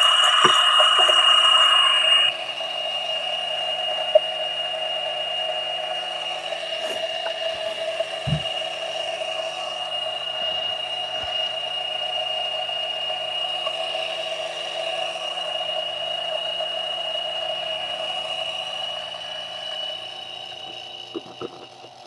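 Turin DF64 coffee grinder with SSP MP burrs grinding a dose of espresso beans. It is louder for about the first two seconds, then settles into a steady motor whine over a lower hum, and stops near the end.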